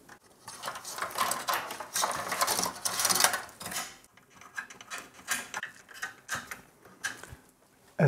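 Cables and plastic connectors being handled and pushed into place inside a sheet-metal mini-ITX PC case: rustling, rattling and small clicks, busier in the first half and sparser later.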